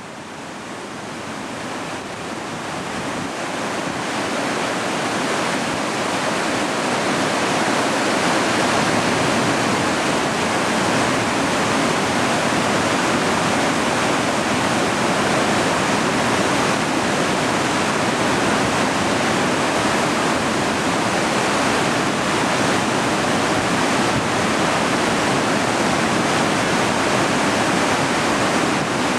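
Steady roar of a large waterfall, Dettifoss, fading in over the first several seconds and then holding level.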